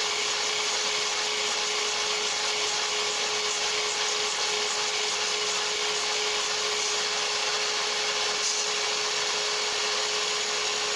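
Mitre saw running steadily with a constant high whine, its blade held down at a set depth in a small plywood block to cut a slot for a hinge leaf.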